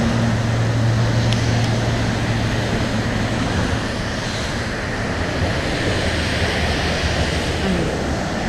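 Steady traffic noise from cars and buses driving on the Brooklyn Bridge roadway, with a steady low hum underneath.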